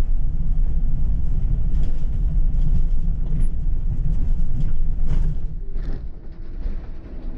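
City bus in motion: a steady low rumble of engine and road noise, broken by a few short clicks. The rumble eases and drops in level about six seconds in.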